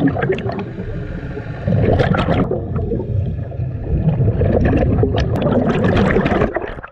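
Underwater rushing and gurgling of scuba air bubbles, with scattered clicks, cutting off suddenly near the end.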